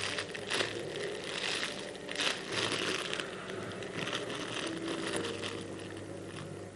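Irregular crinkling and rustling in uneven bursts as small squishy foam toys are handled and squeezed.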